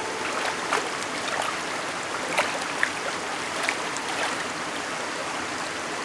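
Shallow mountain stream running over rocks: a steady rush of water with a scattering of short splashes and plops.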